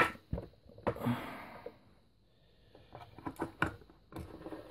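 Scattered light clicks and knocks from hands handling the opened plastic hull of a model bait boat, with a quiet stretch in the middle.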